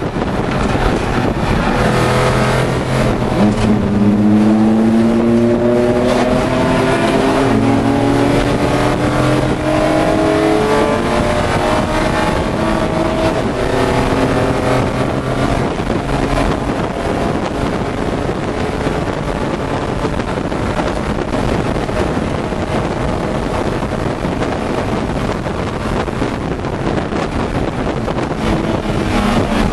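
Inside the cabin of a Pro3 BMW E30 race car, its straight-six engine runs hard under racing load, rising in pitch as it accelerates during the first half. Loud wind and road noise fill the cabin throughout.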